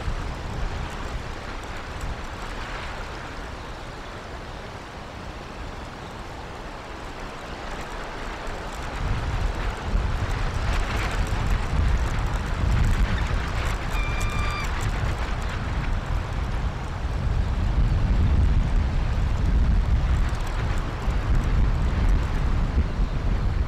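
Wind buffeting an outdoor microphone: a low, gusty rumble that eases for a few seconds, then grows louder about nine seconds in. About two-thirds of the way through, a single short, steady pitched note sounds.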